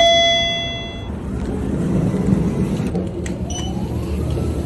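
A single chime rings once and fades over about a second, over the steady low rumble of a vehicle in motion. Near the end a whine rises in pitch.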